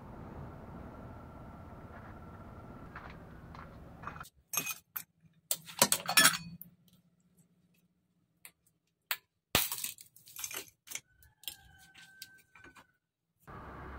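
Chunks of ice dropped and spooned into a tall drinking glass of water, lime and basil seeds, clinking and clattering against the glass in a run of sharp clinks: adding ice for a kulukki sarbath. Before the clinks start there are about four seconds of steady low outdoor background noise.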